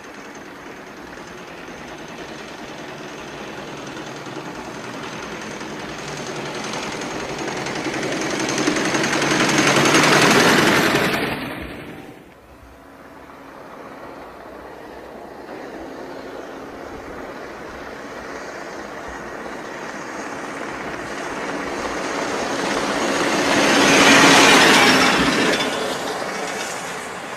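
A Ford Model T bus running on the road: its engine and road noise grow louder as it approaches and peak as it passes. The sound drops abruptly about twelve seconds in, then builds to a second loud pass near the end and fades.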